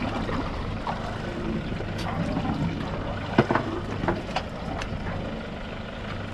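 Boat engine running steadily with a low hum and water noise, with a few sharp clicks or knocks in the middle, the loudest about three and a half seconds in.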